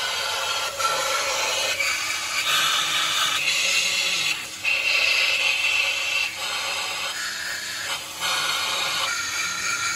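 Compressed-air spray gun hissing as it blasts cleaning fluid onto an engine cylinder head, the hiss shifting in tone as the nozzle is moved over the casting. It drops out briefly about four and a half seconds in and again about eight seconds in.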